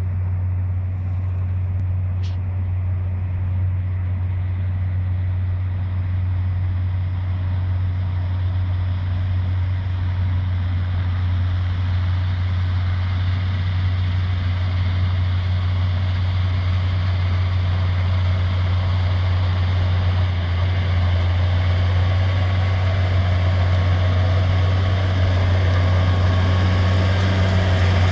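A Steyr tractor, chipped to 180 hp, running under load as it drives a Vicon RV4216 round baler through its PTO shaft, with the baler's pickup and 14-knife cutting rotor feeding wheat straw. A steady low drone that grows louder as the rig draws near.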